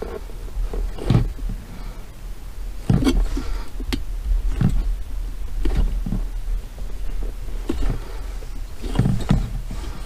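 Irregular knocks, scrapes and clicks of flexible corrugated metal pipe and rubber hose being worked onto a diesel parking heater's ports, over a steady low hum.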